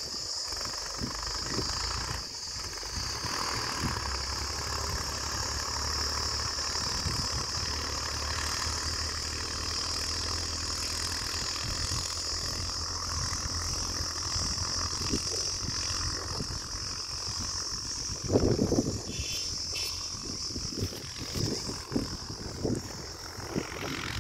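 Distant tractor diesel engine running steadily under load as it pulls a cultivator through the field, with a steady high-pitched buzz over it. A short louder noise comes about eighteen seconds in.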